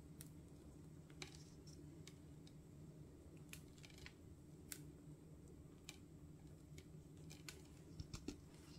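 Near silence with scattered faint ticks as finely crushed almonds are sprinkled by hand onto a glazed loaf cake, a few more of them near the end, over a faint steady hum.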